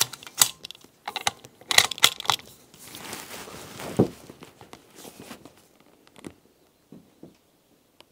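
Clicks, rattles and rustling of a De Lisle carbine, a suppressed .45 ACP rifle on an SMLE action, being handled and readied, with one louder knock about four seconds in. The handling dies down after about five and a half seconds to near quiet with a few faint ticks.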